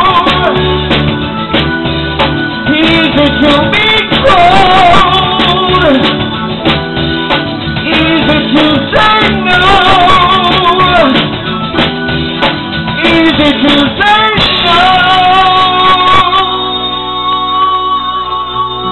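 Live rock band with a male lead singer singing long wordless notes with vibrato over electric guitar, bass and drums. About sixteen seconds in the drums drop away, leaving sustained held chords and a held vocal note as the song winds down.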